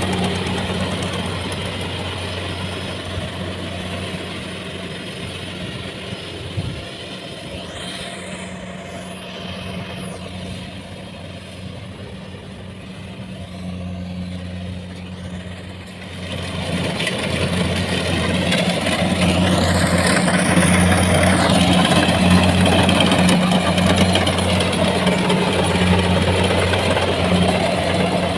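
Engine of a rice combine harvester running steadily with a low, even hum. It eases off for a while, then grows louder from about two-thirds of the way through.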